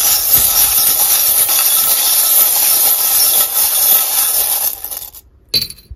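A handful of small divination charms shaken together in a dense, continuous rattle for about five seconds, stopping abruptly, then a brief clatter near the end.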